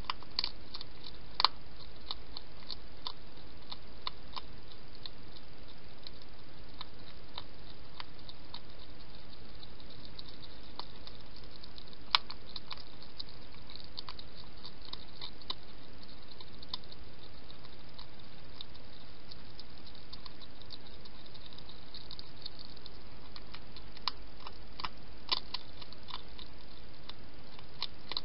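European hedgehog eating from a bowl: small, scattered crunching clicks of chewing, busiest near the start and again in the last few seconds, over a steady hiss.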